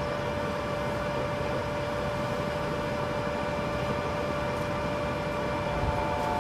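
Small fishing boat's motor running steadily, a constant hum with a fixed tone.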